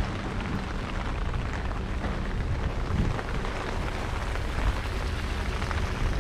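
Steady rain falling on a wet street, with a low rumble of wind buffeting the microphone.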